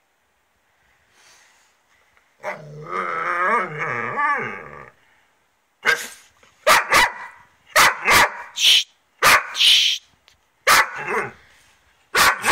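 A Doberman's wavering, drawn-out growl lasting about two and a half seconds, then a run of short, sharp barks and yips from about six seconds in: a bad-tempered dog grumbling and snapping.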